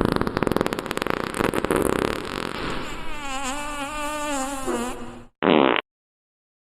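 Fart sound effect: a long, rapid sputtering fart that turns into a drawn-out wavering tone and cuts off about five seconds in, followed by a short second burst.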